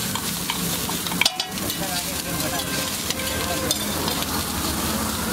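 Beaten egg sizzling steadily on a hot flat griddle as it is poured and spread, with one short sharp knock just over a second in.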